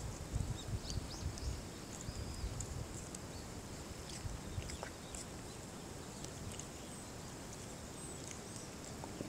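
Shiba Inu chewing and tugging at grass close by, with rustling that is strongest in the first second or two, over a quiet rural background with scattered faint high chirps.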